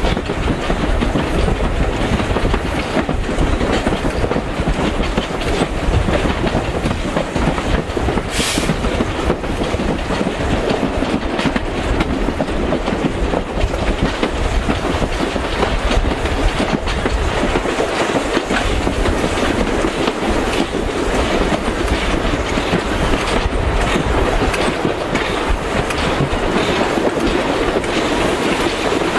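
Steam-hauled passenger train heard from aboard, running steadily with a rumble and the wheels clicking over the rail joints. A brief high hiss comes about eight seconds in.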